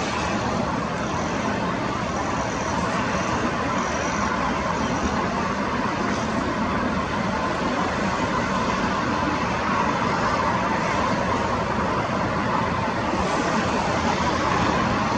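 A steady, even roar of engine noise that rises slightly near the end.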